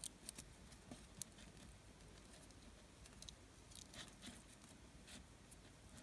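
Faint handling of Venetian blind cord between fingers as a knot is tied: soft rustling and a few small scattered clicks.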